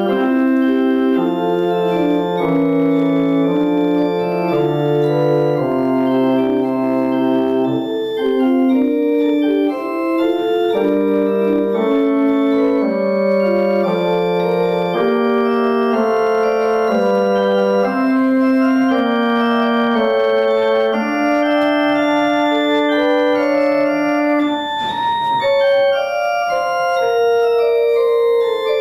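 Church organ playing slow, sustained chords, the held notes changing every second or so.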